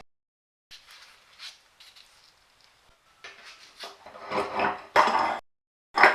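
Metal parts of a cast-iron bench vise clinking and scraping as they are handled and worked, in short cut-together snippets with abrupt silent gaps; faint at first, louder clattering from about three seconds in, with a sharp clank near the end.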